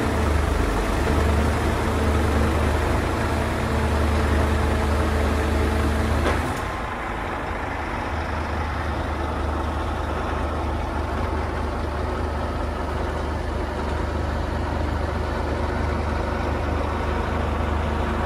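Heavy truck diesel engine running steadily at idle. A steady higher hum over it cuts off about six and a half seconds in, leaving a slightly quieter, duller engine sound.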